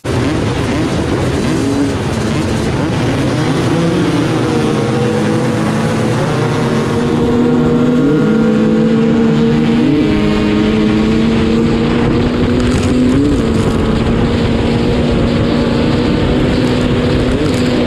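Honda CR500's single-cylinder two-stroke engine at hard throttle, heard from on board, with the engines of many surrounding dirt bikes revving and pulling away in the first few seconds of a mass start. The bike's engine then holds a steady high note, with brief jumps in pitch about 8, 10 and 13 seconds in.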